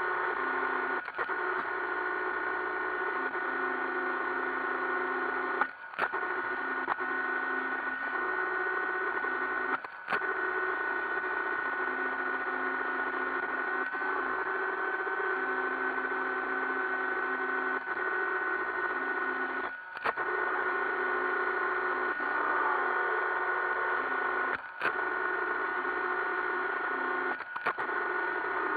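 iRobot Roomba 560 robot vacuum running, a steady whir of motor and brushes with a high whine. The whir is broken by a short click or dip about five times.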